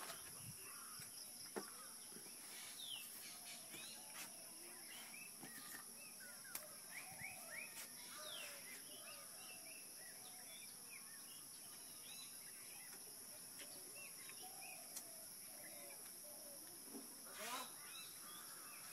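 Faint rural ambience: a steady high insect drone with frequent short bird chirps and whistles over it.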